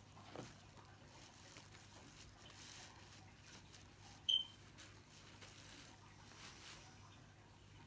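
Faint rustling of a fleece blanket and bubble wrap as hands unwrap a doll, over a low steady hum. About four seconds in, one short high-pitched chirp stands out as the loudest sound.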